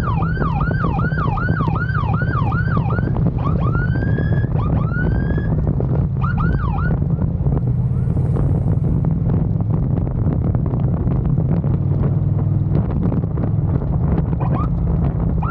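Police motorcycle's electronic siren. It gives a run of quick falling sweeps, about two or three a second, then two slower rising whoops and a few more quick sweeps, and falls silent about seven seconds in. A short rising chirp comes near the end. Underneath, the motorcycle's engine and wind on the microphone run steadily.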